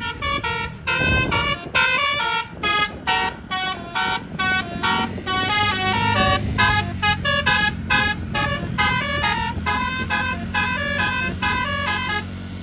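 Tour bus telolet horn playing a fast tune of short, sharply cut toots, several notes a second at changing pitches, over the steady low hum of the bus's engine running.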